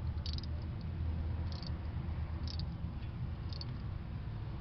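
Ratchet wrench clicking in four short bursts about a second apart, as each back-swing of the handle snugs a new spark plug into the engine head, over a steady low rumble.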